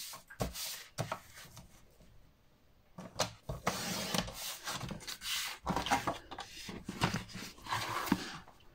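Paper and craft tools being handled on a work table: a few light knocks, then a few seconds of irregular paper rustling and rubbing as a sheet is measured for cutting.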